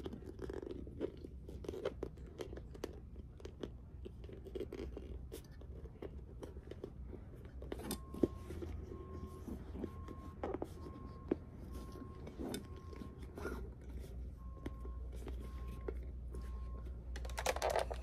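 Faint handling noise of doll parts and stringing being worked: scattered small clicks, taps and crinkling as the string ends are threaded through the doll's torso.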